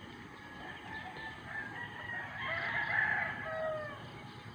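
A rooster crowing, loudest about three seconds in.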